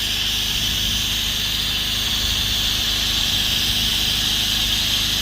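Pressure washer spraying steadily, the water jet hissing against the pool-cage screen, over the steady running of the rig's Predator 459cc single-cylinder gas engine.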